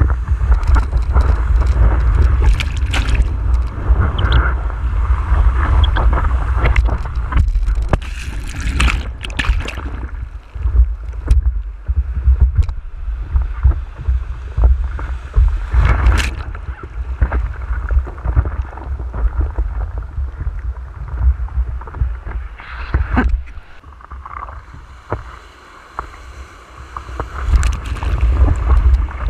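Seawater sloshing and splashing against a surfboard-nose camera in the surf, over a heavy rumble of wind and water on the microphone. Sharp splashes come every several seconds, and a wave of whitewater breaks over the board near the end.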